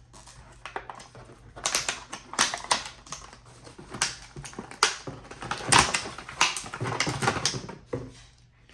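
Hands unpacking and handling a crimping tool and its packaging: irregular clicks, rattles and crinkling bursts, busiest in the middle.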